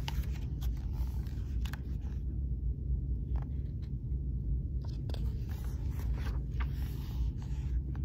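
Pages of a large hardcover picture book being turned and handled, with a few soft paper scrapes and clicks over a steady low rumble of room and handling noise.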